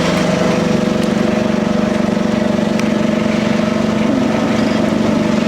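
Forklift engine running steadily at idle, an even hum with a fast, regular pulse.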